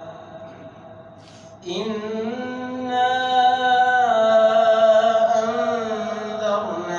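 A man's voice reciting the Quran in a melodic chant: the last word trails off into a short pause, then from about two seconds in he holds a long note on 'Inna', rising in pitch in steps.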